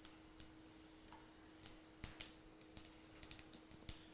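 Mustard seeds and other tempering spices popping in hot oil: faint, irregular sharp pops, several a second at times, as the tempering splutters.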